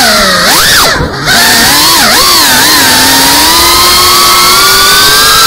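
GEPRC cinewhoop FPV drone's brushless motors whining, the pitch swooping up and down with throttle changes. The throttle drops off briefly just after a second in, then the whine climbs and holds fairly steady.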